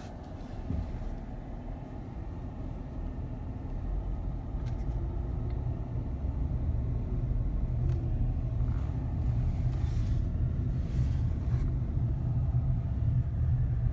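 Low rumble of a car's engine and tyres heard from inside the cabin while driving, growing gradually louder.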